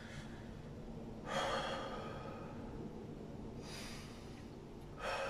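A man breathing deeply through the microphone, with three audible breaths about two and a half seconds apart, taken as rest between sets of an abdominal exercise.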